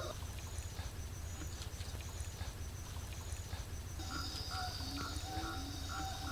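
Outdoor field ambience over flooded paddy water: a steady low rumble like wind on the microphone, and a high chirp pulsing about twice a second. From about four seconds in, frogs start croaking in short calls that repeat in an even rhythm.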